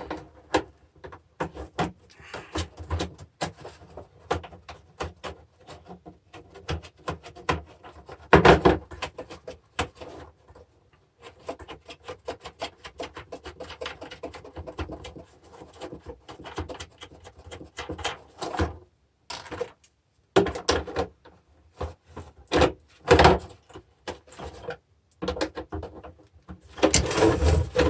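Hand tools undoing screws and nuts on a battery charger's casing: runs of rapid small clicks and scrapes, with sharper knocks of metal and plastic parts, the loudest about eight seconds in and again a little after twenty seconds.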